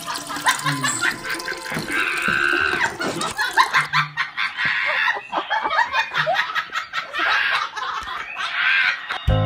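People laughing and chuckling in repeated short bursts.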